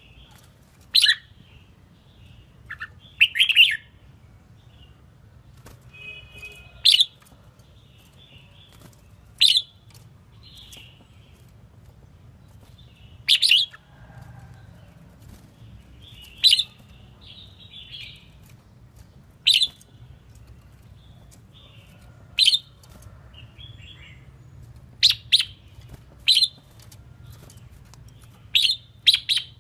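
Red-whiskered bulbul, an untrained wild-type bird, singing. It gives short, sharp calls about every three seconds, sometimes in quick pairs, with soft twittering between them.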